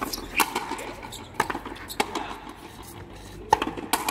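Frontenis rally: sharp cracks of the racket striking the rubber ball and the ball smacking the fronton wall, six hits in about four seconds at an uneven pace.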